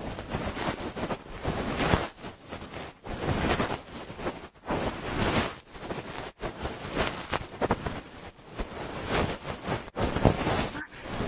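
Fluffy dog-tail ear cleaning on a binaural microphone: soft rustling brush strokes over the ear that swell and fade every second or two.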